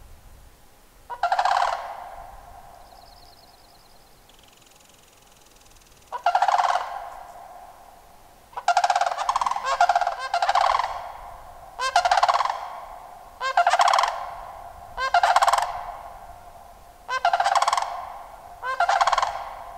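A series of loud animal calls, about ten, each lasting around a second with a rapid rattling pulse. The first two come several seconds apart, then they repeat every second and a half or so.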